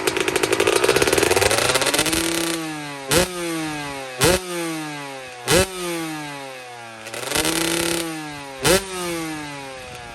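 2005 Kawasaki KX125's single-cylinder two-stroke engine revved high for about two seconds, then blipped sharply four more times with a slower rev between, the pitch falling away toward idle after each blip.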